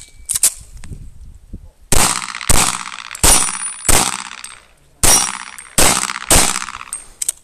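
Seven handgun shots, the first about two seconds in, spaced half a second to a second apart in short strings. Two of them are followed by a brief high ring.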